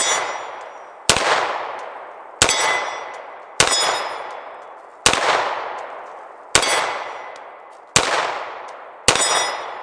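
A Bersa TPR9 9mm pistol fired slowly: seven single shots, roughly one every second and a half, each echoing away before the next. Each shot carries a short metallic ring from the steel plate targets being hit.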